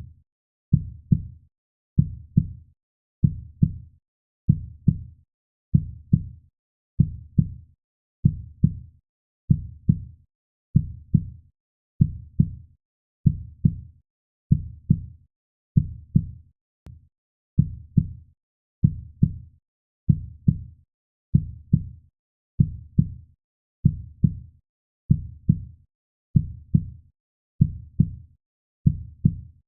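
Heartbeat sound: low, deep thumps that fade quickly, repeating in a steady, slow, even rhythm without a break.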